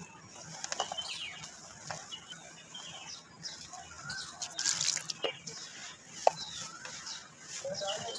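Dry red dirt powder pouring onto wet mud and being crumbled by hand: soft gritty patters and scattered small crunches and clicks.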